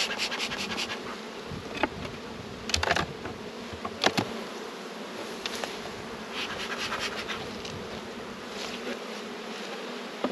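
Honey bees humming steadily around an open hive. Sharp clicks and scrapes about two, three and four seconds in come from wooden hive frames being pried loose and lifted out.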